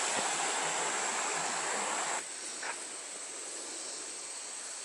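Steady rushing outdoor background noise with no clear events. It drops abruptly and becomes quieter about two seconds in.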